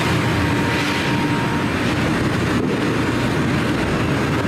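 A steady low rumbling drone with a faint hum held through it.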